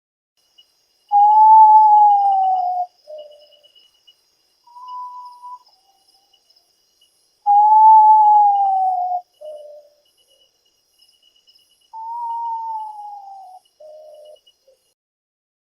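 Potoo calling with long whistled notes: three drawn-out whistles that slide slowly down in pitch, each followed by a short lower note, with a brief higher note between the first two. Insects trill faintly and steadily in the background.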